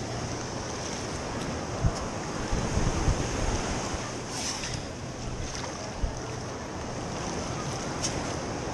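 Shallow surf washing around the feet, with wind on the microphone. A few dull thuds about two to three seconds in as the perforated stainless steel sand scoop digs, and a short hiss about four and a half seconds in as water drains through the lifted scoop.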